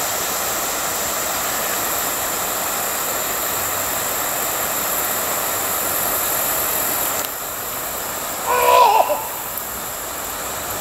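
Steady outdoor hiss with two thin, high, steady tones above it, dropping quieter about seven seconds in; a short call in a person's voice comes near nine seconds.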